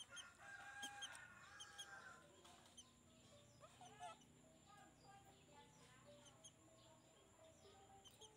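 Young chicken making faint clucking and peeping calls: a held call in the first couple of seconds, a rising-and-falling call about four seconds in, then scattered short calls.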